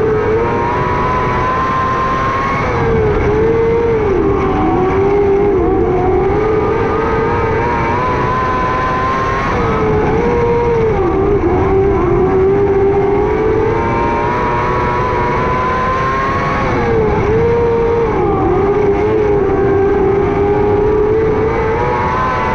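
600cc micro sprint car's motorcycle engine running hard, its pitch dipping as the throttle comes off into a turn and climbing again on the straight. This happens three times, about every seven seconds, lap after lap.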